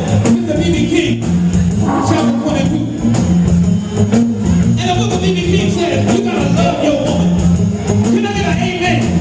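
Live blues band playing a slow blues with singing, a repeating bass line under electric guitar and percussion.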